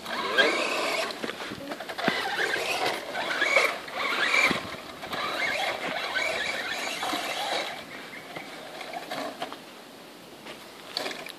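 RC truck's motor and drivetrain whining as it climbs a dirt slope, the pitch rising and falling with the throttle. The whine fades and quietens about eight seconds in.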